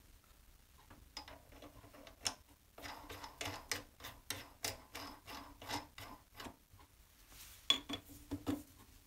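Faint, evenly spaced metallic clicking as the clamping nut on a lathe's quick-change toolpost is turned by hand, then a few sharper metal clinks near the end as a spanner is fitted onto the nut.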